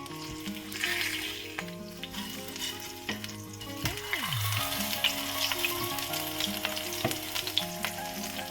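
Food frying and sizzling in a pan on the stovetop, with scattered sharp crackles and clicks.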